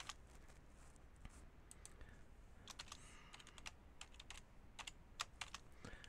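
Faint keystrokes on a computer keyboard, typing a password in irregular runs of clicks.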